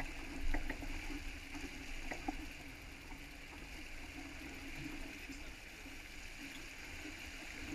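Water rushing and splashing along the hull of a sailing boat under way, with wind rumbling on the microphone. A few light ticks come in the first two and a half seconds.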